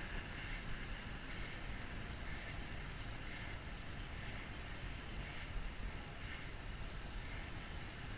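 Steady wind noise on the microphone with a low road rumble, as the camera moves at riding speed alongside a road cyclist. A faint soft pulse comes through about once a second.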